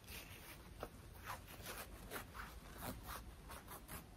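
Faint, irregular scratchy rustles of a thread being pulled through a row of stitches in fabric, drawing the cloth up into gathers.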